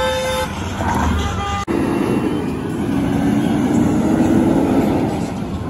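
Tractor-trailer truck driving close past, its diesel engine and tyre noise swelling to a peak about four seconds in over general traffic. Before it, about a second and a half of faint music, ending with a brief break in the sound.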